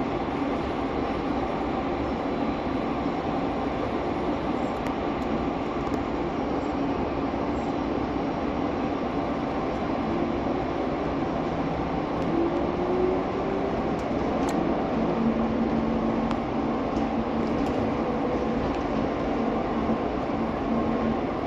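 Phoenix Sky Harbor Sky Train, a rubber-tyred automated people mover, running along its elevated guideway, heard from inside the car as a steady rumble. About halfway through a faint whine rises in pitch, then settles into a steady hum.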